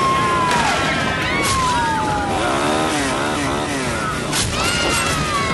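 A loud chaotic mix: a motor running hard under crashing and shattering impacts, with several screams that slide down in pitch.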